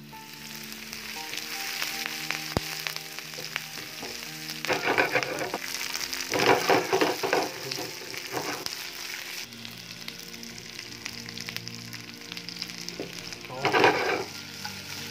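Chopped garlic sizzling in hot oil in a non-stick kadai and stirred with a wooden spatula, a steady frying hiss. It surges louder about five seconds in, again for a couple of seconds around seven, and once more near the end, as cut capsicum and onion and then the deep-fried liver pieces go into the pan.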